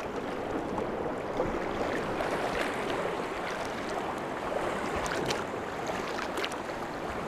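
Small sea waves lapping and washing against shoreline rocks: a steady, even wash of water.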